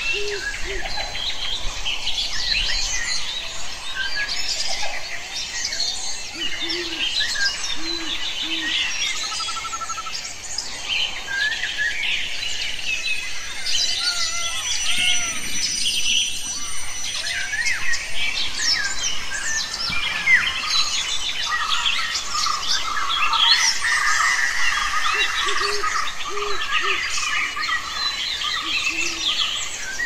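Many forest birds calling and singing at once, a dense mix of chirps, trills and whistles. Every several seconds a bird gives a short run of two to four low hoots.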